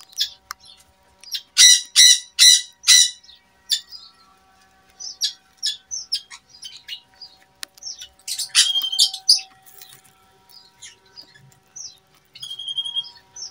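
Small birds chirping: a run of four loud chirps about two seconds in, then scattered chirps and calls, with a denser flurry of calls past the middle and a short held whistle near the end.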